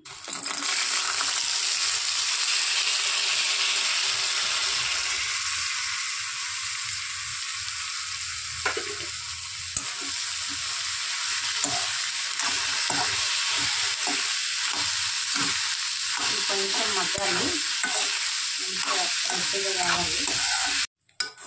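Moong beans (green gram) sizzling loudly in hot oil in an iron kadai. From about the middle on, a steel spoon scrapes and clicks repeatedly against the pan as the beans are stirred. The sound stops abruptly near the end.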